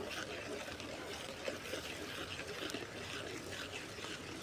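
Soft bubbling of boiling water in an aluminium pot as coarse rice flour is sprinkled in and stirred with a steel ladle, with many faint irregular small clicks.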